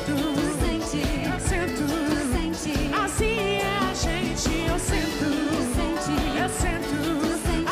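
A live band plays a pop song with a steady beat, with drums, congas, electric guitar and keyboards, and a voice sings over it.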